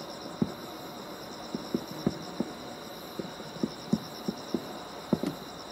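Crickets trilling steadily in a high pulsing chirr, with about a dozen short, sharp pops or clicks at irregular intervals over it.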